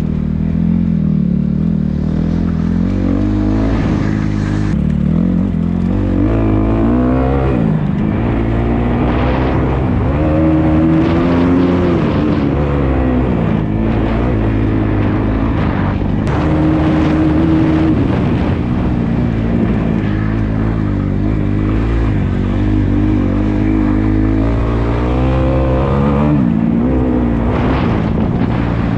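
Dirt bike engine revving up and down as it is ridden, its pitch climbing and dropping again every few seconds.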